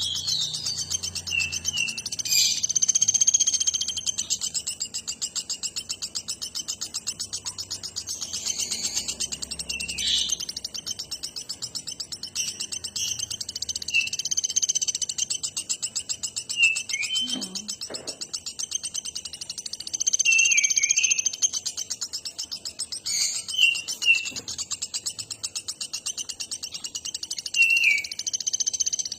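Pelatuk batu bird calling vigorously: a rapid high-pitched trill that runs on almost without a break, with short chirps over it and a few louder swells.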